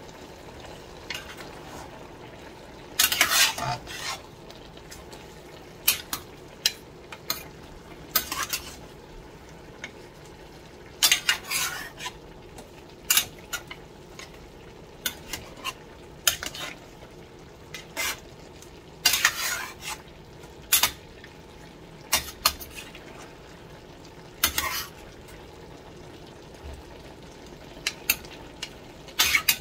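A spatula stirring and tossing vegetables in a stainless steel pan: irregular bursts of scraping and clacking against the metal every second or few, over a steady sizzle of stir-frying.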